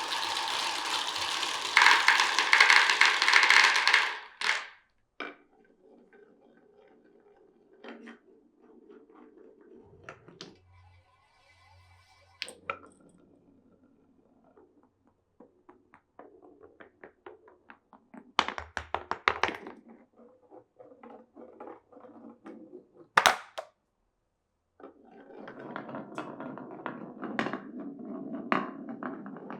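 Glass marbles rolling and clacking through a wooden marble run: scattered clicks and knocks with a sharp clack about 23 seconds in. A loud rushing noise stops about four seconds in, and a steadier rolling rumble comes near the end.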